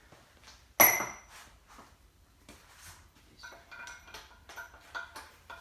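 Hand tools and metal engine parts clanking and clinking: one sharp metal clank with a brief ring about a second in, then a series of lighter metallic clicks and taps.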